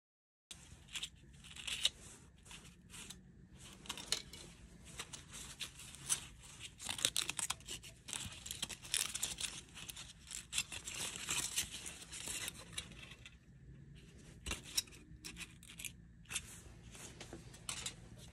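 Crumpled aluminium foil crinkling and crackling in irregular bursts as gloved hands unfold and handle it, with a brief lull a little after two-thirds of the way through.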